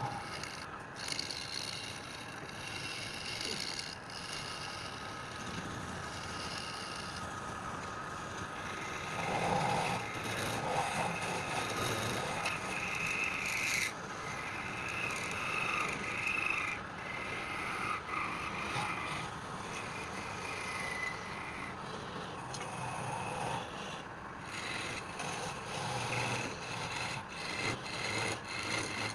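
Wood lathe running while a tool rubs against the spinning wood, a steady scraping with a faint motor whine under it.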